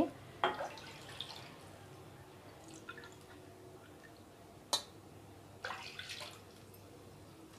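Milk being poured into a pan of milk, a short splashing pour near the end, preceded by a few faint clicks and one sharp click.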